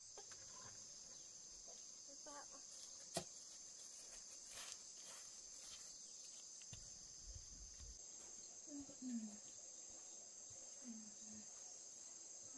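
Faint, steady, high-pitched chirring of insects, with a single sharp click about three seconds in.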